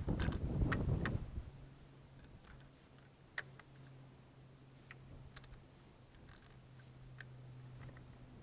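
Handling noise as the rifle is readied: a rumble in the first second, then scattered light clicks over a steady low hum. No shot is fired.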